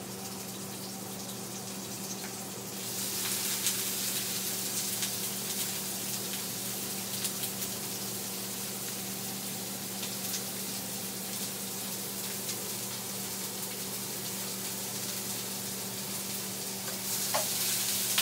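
Sliced onion tipped into hot oil in an electric skillet starts sizzling about three seconds in, then fries steadily, with the scrape and tap of a metal spatula stirring it through the garlic and tomato. A low steady hum runs underneath.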